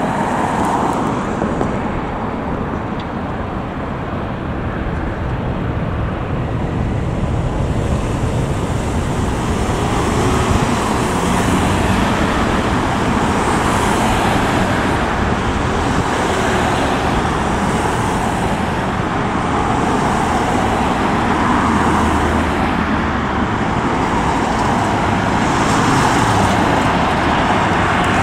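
Steady road traffic noise with cars passing, mixed with the engines of an Airbus A321neo on final approach, growing somewhat louder toward the end as the airliner nears overhead.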